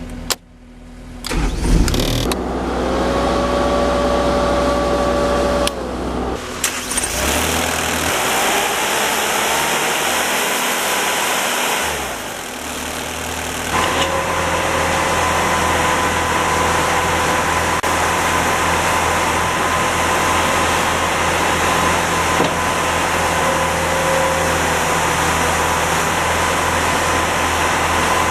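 Diesel engine of a 2012 Terex PT60 compact track loader starting up about a second or two in, then running with a steady whine over it, its sound changing a few times as the engine speed changes.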